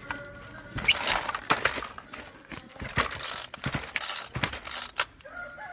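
Irregular clattering knocks and rattles, with a rooster starting to crow near the end.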